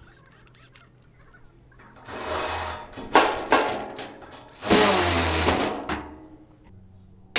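Power drill boring a hole through sheet metal, run in three bursts with short pauses between them.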